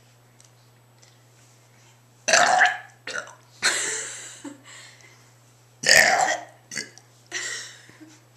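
A girl burping deliberately, twice, loudly, about three and a half seconds apart, each burp followed by shorter, fainter sounds.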